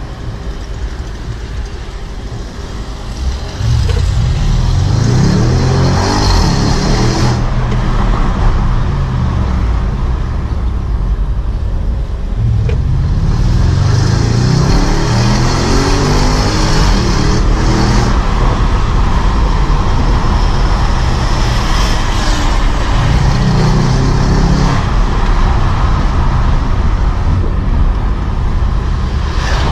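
Audi S7's twin-turbo V8 heard from the cabin, running quietly at first and then pulling hard from about four seconds in. It accelerates in several runs, its pitch climbing in each before dropping back at a shift or lift.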